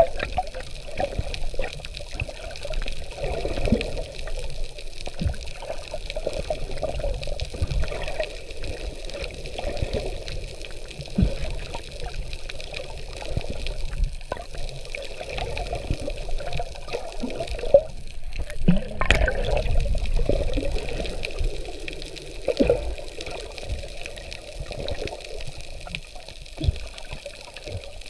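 Seawater sloshing and gurgling around a camera held just under the surface by a snorkeler, with a sharper splash about two-thirds of the way through.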